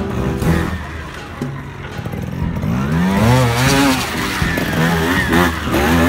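Trials motorcycle engine blipped hard as the rider climbs a rocky step: the revs rise sharply about halfway through, fall away, then rise and fall again in quick bursts near the end.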